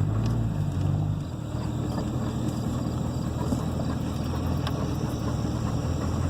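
Old Chevrolet C10 two-wheel-drive pickup driving slowly down a rough dirt lane, heard from inside the cab: a steady low engine hum whose note shifts about a second in, with a few light clicks and rattles.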